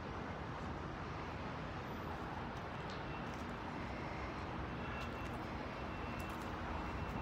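Steady outdoor background rumble with a few faint ticks.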